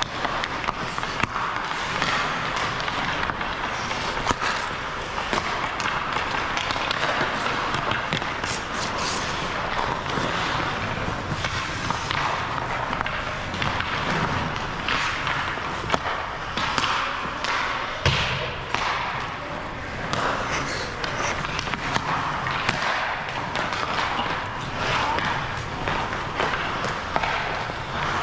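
Ice hockey rink sounds: a steady scraping hiss of skates on the ice, broken by frequent sharp knocks of sticks and pucks and of pucks hitting the boards, with one especially loud bang about 18 seconds in.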